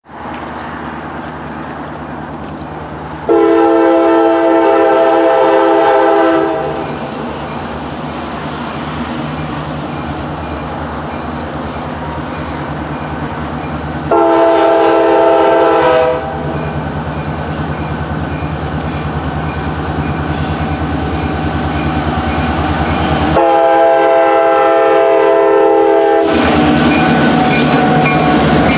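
Freight train's diesel locomotive running as it approaches a grade crossing, sounding its horn in three long blasts of two to three seconds each as the crossing warning. Near the end the locomotive reaches the crossing and the cars rumble past on the rails.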